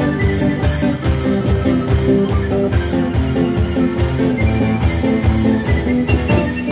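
Small acoustic band playing live: strummed acoustic guitars and a cajón slapped by hand keep a steady beat, while a wind instrument carries the melody in sustained notes.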